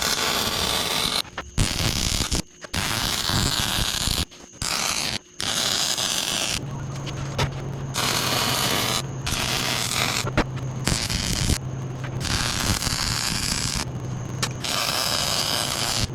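Welding arc crackling in repeated bursts of a second or two each, stopping and starting with short pauses between beads. A steady low hum joins about six seconds in.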